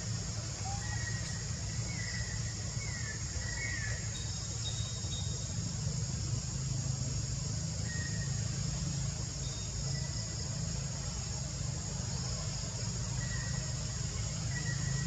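Outdoor ambience: a steady low rumble and a constant high insect drone, with a few short high chirps, most of them in the first four seconds.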